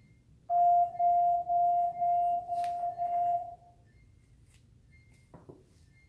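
A loud beeping tone at one steady pitch, about six beeps in three seconds, then dying away. Two faint knocks follow near the end.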